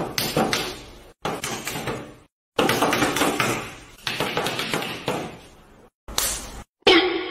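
A series of about eight sharp knocks on a wooden table top, each ringing out and dying away over a second or so, with sudden dead gaps between some of them.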